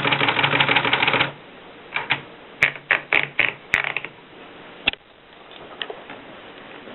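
Olympia Splendid portable manual typewriter in use: a fast, dense run of clicks for about the first second, then about eight separate key strikes between two and four seconds in, and a last strike near five seconds.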